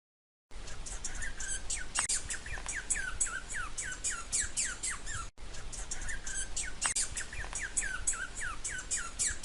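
Squirrel calling in a rapid series of short, falling chirps, about three or four a second. A brief break comes about five seconds in, and the same run of chirps repeats.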